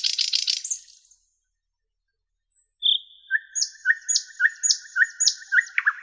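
Nightingale singing. A fast buzzing rattle breaks off just under a second in, followed by a pause. Then come a single high whistled note and a phrase of repeated held notes with sharp clicks, and near the end a run of loud, rapid strokes.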